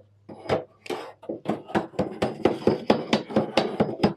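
Hammer tapping a metal band down around a wooden barrel to tighten it: a run of quick knocks that speeds up to about five a second after the first second.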